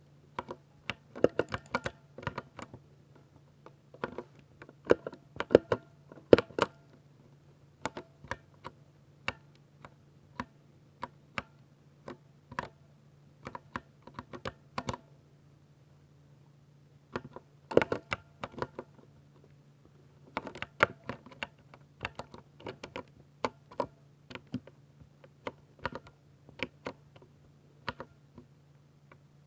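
Typing on a 60% mechanical keyboard with silver switches: irregular runs of sharp key clicks, with a pause of a couple of seconds about halfway through. A faint steady low hum lies underneath.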